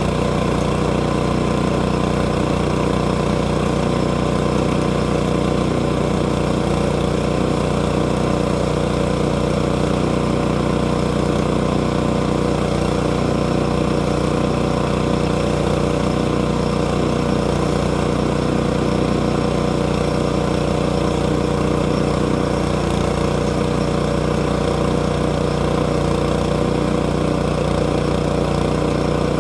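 A gasoline engine running steadily at one constant speed, with no change in pitch or load.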